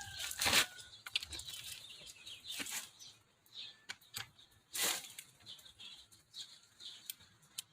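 A few brief rustling swishes and light clicks, like debris being brushed away and things being handled, with the rotary hammer not running.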